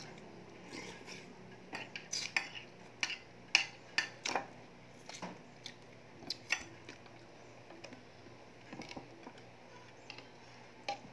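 Eating a hand-eaten meal of dried fish (buwad) and rice over a plate: a run of sharp clicks and taps as the fish is broken apart and the rice is worked with the fingers against the plate. The clicks are thick for the first several seconds, loudest a few seconds in, and thin out to a few after about seven seconds.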